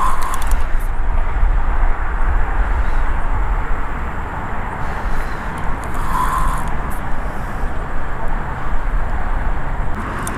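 Steady outdoor background noise with a heavy low rumble that eases about halfway through, and brief faint high hissing a little after that.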